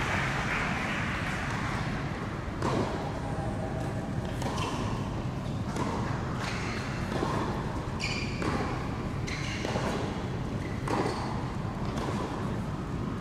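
A tennis ball bouncing on a hard indoor court now and then, about ten separate knocks at uneven intervals, each with a short echo off the hall.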